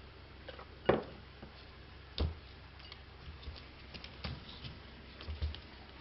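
Irregular knocks and clicks, the loudest about a second in and others spread through the rest: a red-eared slider's shell and claws knocking against its food dish and the hard floor as it turns and walks off.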